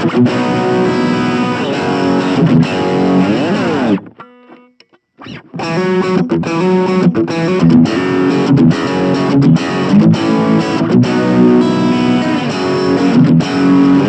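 Electric guitar (Fender Elite Telecaster) played through a Blackstar Fly 3 mini amp's overdrive channel, giving a distorted tone. The player stops about four seconds in, leaving a faint ringing note, then starts again, with sliding notes just before the pause and near the end.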